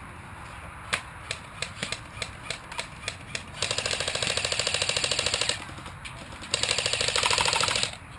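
Airsoft guns firing: a string of single shots, then two rapid full-auto bursts, the first about two seconds long and the second about a second and a half, which are the loudest part.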